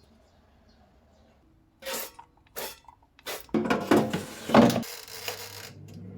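Kitchen food-preparation sounds: three sharp clatters about two to three and a half seconds in, then a dense stretch of scraping and handling noise, with a steady low hum starting near the end.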